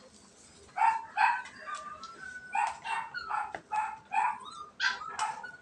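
A dog yipping: a run of about ten short, high calls over five seconds.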